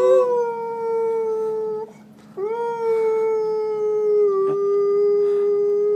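Dog howling: two long howls, each holding a nearly steady pitch that sags slightly, the first ending about two seconds in and the second starting half a second later.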